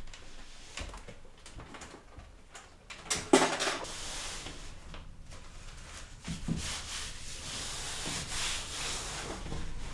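Handling noises from computer parts being moved about: scattered clicks and a sharp knock a little over three seconds in, then a long stretch of rubbing and sliding.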